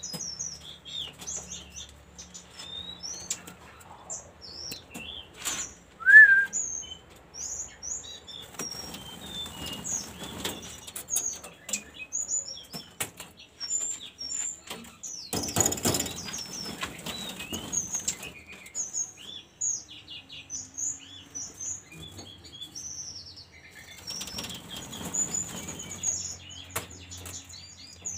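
A caged jungle flycatcher (sikatan rimba) singing: a long run of short, high chirps and quick sweeping notes. A few louder rustling bursts come and go among them.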